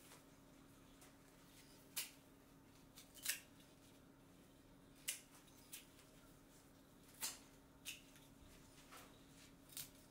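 Hand scissors snipping the stems off harvested Asian ginseng roots: about nine sharp, short snips at uneven intervals, over a faint steady hum.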